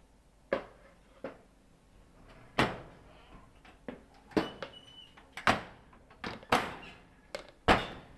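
Irregular sharp metal clanks and knocks, about a dozen, from a stainless-steel deck oven's door and fittings being handled.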